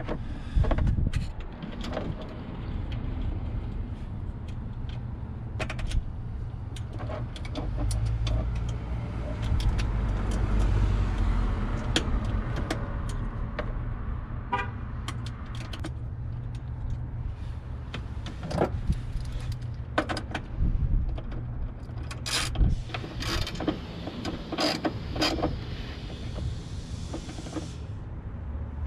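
Scattered clicks and knocks of wiring and hand tools being handled during electrical work, over a steady low rumble.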